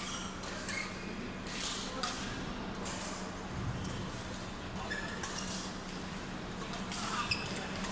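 Badminton doubles play: irregular sharp cracks of rackets striking the shuttlecock and a few short shoe squeaks on the court floor, over background voices and a steady low hum in a large hall.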